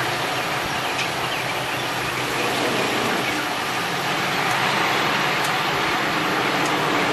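Steady motor-vehicle noise: an engine running with a continuous rush of road or traffic noise.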